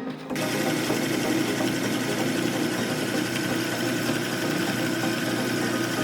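Electric meat grinder's motor running steadily, starting about a second in as the music stops.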